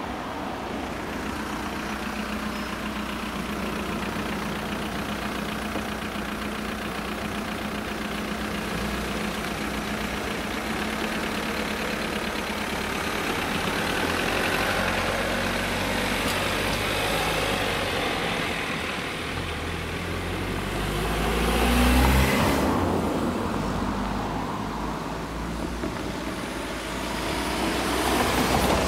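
Road vehicle engines at a level crossing: a steady idling hum, then an engine pulling away and passing with rising pitch, loudest about two-thirds of the way through. Another vehicle comes by loudly near the end.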